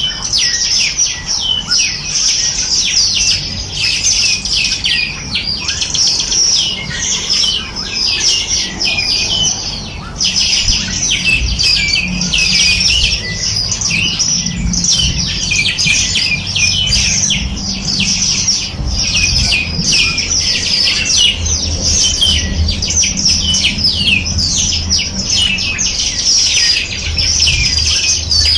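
A dense chorus of small songbirds chirping and trilling continuously, many fast high notes overlapping, over a faint low rumble.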